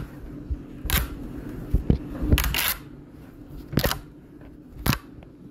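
Sealed plastic bucket lid being pried off by hand: several sharp plastic snaps and clicks as the lid's tabs give way around the rim.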